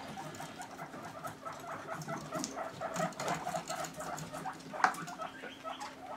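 Guinea pigs scurrying about a wooden cage: many small, irregular pattering and scrabbling sounds from their feet on wood and bedding, with one sharp knock about five seconds in.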